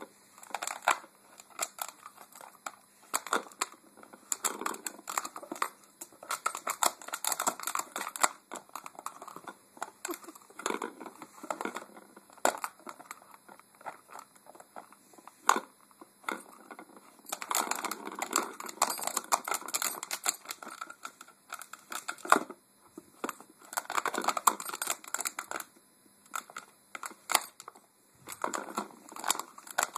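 A Cardigan Welsh Corgi puppy pawing and mouthing a plastic ring-track cat toy: irregular bursts of scratching, clicking and crinkling, with short pauses between.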